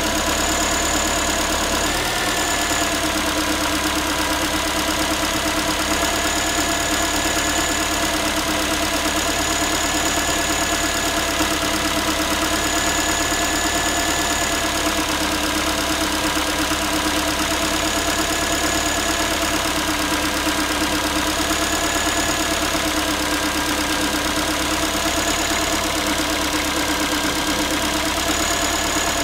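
Ford Focus 3 1.6-litre petrol four-cylinder idling after a cold start with a fast metallic knocking, a tinny, saucepan-like clatter whose cause the owner cannot identify. A faint high whine comes and goes every couple of seconds.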